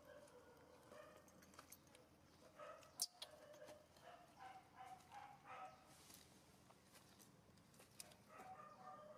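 Faint animal calls: strings of short pitched squeaks, several in a row through the middle and again near the end. A single sharp click about three seconds in.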